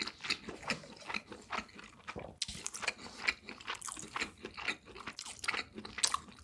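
Close-miked chewing of crunchy food: many irregular crisp crunches and bites in quick succession.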